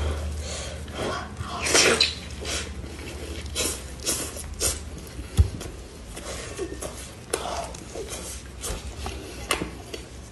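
Close-miked eating sounds of a braised pork knuckle: wet, sticky tearing of the soft skin and meat by gloved hands and chewing, heard as an irregular run of short clicks and smacks. One sharper knock comes about halfway through.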